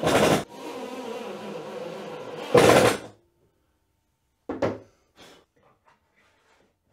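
Cordless drill-driver running as it drives screws into plywood, with two loud bursts of noise, one at the start and one at about two and a half seconds, before the motor stops about three seconds in. A sharp wooden knock follows, then a few light clicks.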